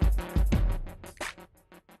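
Electronic background music with a fast beat and heavy bass hits, fading out over the last second.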